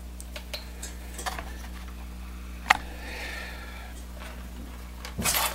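Handling of a multimeter and its test leads: a few light clicks, one sharper click about two and a half seconds in, and a short rustle near the end, over a steady low hum.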